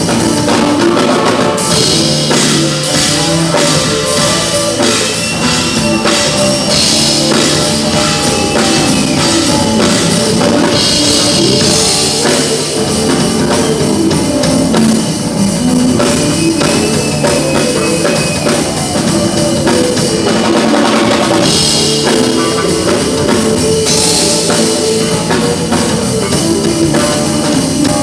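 Loud band music with a drum kit and plucked strings, in a rock style, with cymbal crashes every few seconds.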